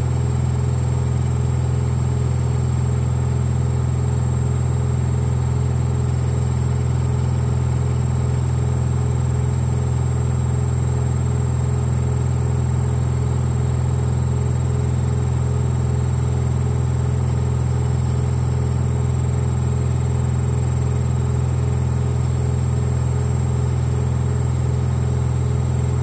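Hoover Vision HD 7 kg front-loading washing machine spinning a carpet load at high speed: a loud, steady hum from the motor and drum, with a fast, even pulsing underneath.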